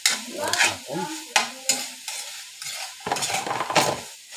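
Metal spatula scraping and stirring pieces of meat frying in oil in an aluminium wok, a handful of irregular scrapes against the pan over a light sizzle. The meat is being browned.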